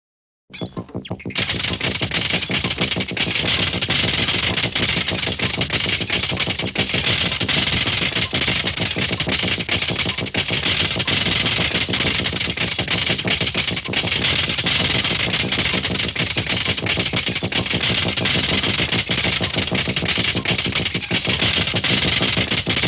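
Loud, very rapid rattling, a dense unbroken stream of sharp hits that starts suddenly about half a second in and then keeps on steadily.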